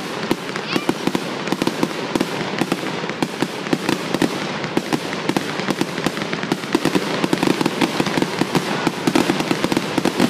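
Aerial firework shells bursting in a rapid, unbroken string of sharp bangs and crackles, many a second, overlapping with no gap.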